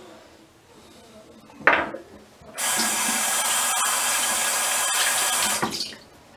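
A sharp knock, then a faucet running steadily into a sink for about three seconds before it is shut off.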